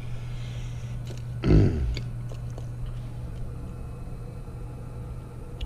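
Climate Master geothermal heat pump running with its contactor pulled in, a steady low hum, with light clicks of tools and wires being handled. A short, loud sound comes about a second and a half in.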